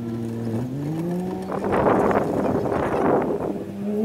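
A motor vehicle's engine accelerating: a steady hum rises in pitch, swells into a louder, rougher stretch midway, then drops back and climbs again near the end.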